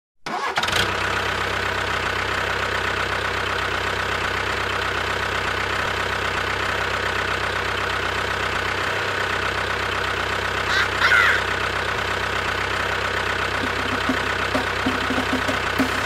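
Tractor engine running steadily at an even idle. A short high chirp sounds about eleven seconds in.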